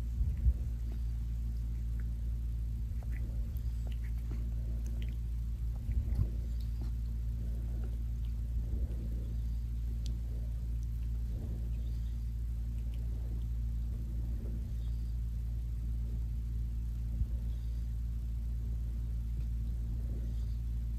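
A tabby cat licking his fur while grooming: faint, repeated licking sounds over a steady low hum, with a couple of thumps, one just after the start and one about six seconds in.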